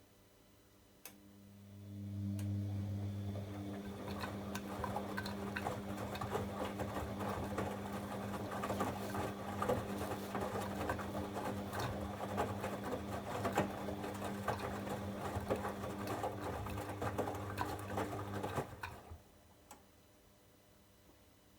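Bosch Avantixx washing machine's drain pump switching on with a click and running for about 17 seconds: a steady mains hum under a busy crackle of gurgling water, then it cuts off abruptly.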